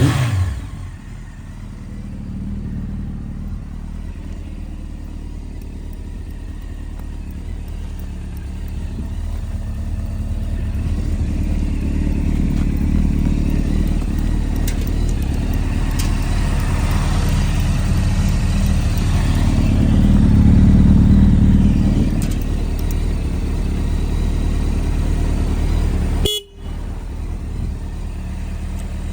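Honda CBR900RR (SC33) inline-four engine running steadily at a low, even speed. It grows louder for a couple of seconds about twenty seconds in, and the sound cuts out abruptly for a moment near the end.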